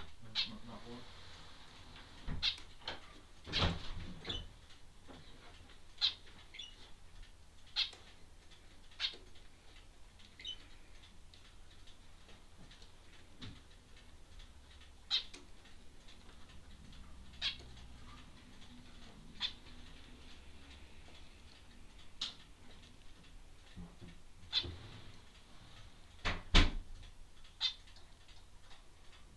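A small bird giving short, sharp chirps every second or two, with a few louder knocks among them, the loudest near the end.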